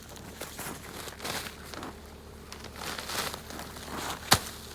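Plastic silage-bag sheeting crinkling and rustling as it is handled and pulled back over crusted snow, with a sharp snap near the end.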